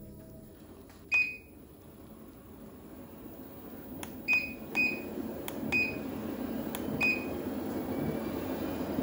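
Foldable walking-pad treadmill's motor and belt running with nobody on it, the hum growing louder as the speed is stepped up. Five short high beeps from the treadmill mark each speed step.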